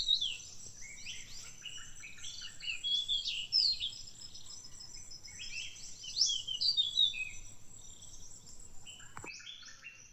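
Several birds chirping and singing in quick, overlapping calls, over a steady high-pitched insect drone that stops about nine seconds in.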